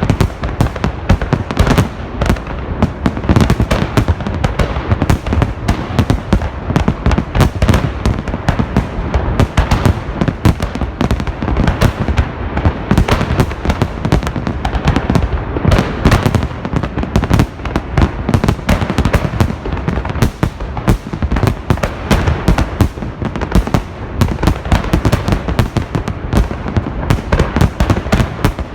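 Festive fireworks salute: a dense, continuous barrage of shell bursts and bangs, many per second, with no pause.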